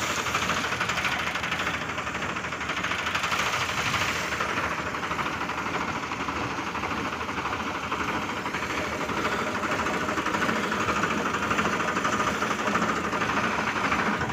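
Tractor's diesel engine running steadily at a fast even beat, driving a tractor-mounted crop spray pump.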